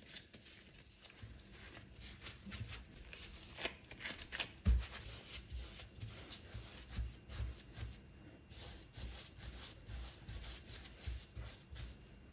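Gloved hands rounding balls of yeast pizza dough on a floured silicone mat: soft rubbing and scuffing with repeated dull thuds as the dough is pushed and turned, the loudest thud about five seconds in.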